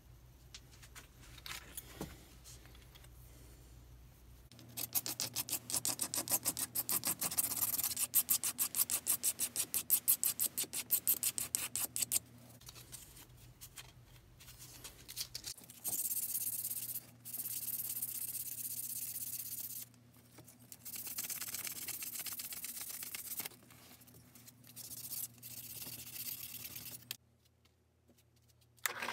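Hand sanding with 3M wet-or-dry sandpaper: a run of quick, even back-and-forth rubbing strokes, then several longer stretches of steady rasping with short pauses between them.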